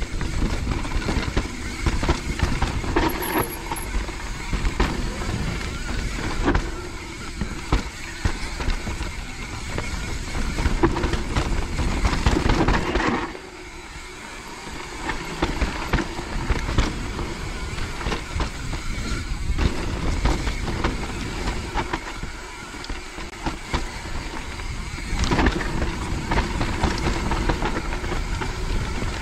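Mountain bike descending a wet, rooty trail, heard from the rider's camera: a continuous rush and rumble of wind and tyres with irregular knocks and rattles from the bike over roots and drops. It goes quieter for a few seconds about halfway through.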